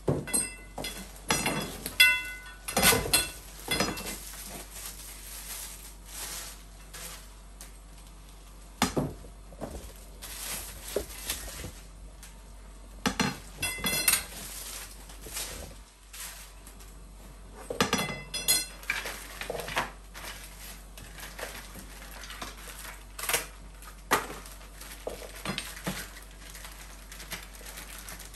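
Hollow metal tubes of a baby jumper stand clinking and knocking against each other as they are handled and fitted together, in irregular knocks, some ringing briefly. The knocks are loudest in the first few seconds, again about halfway through, and a few seconds after that, with quieter handling noise between.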